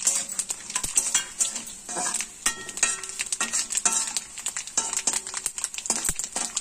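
Garlic, mustard seeds and dried red chillies sizzling in hot oil in a metal kadai, with repeated scrapes and clinks of a metal spatula stirring against the pan, some strokes leaving a short metallic ring.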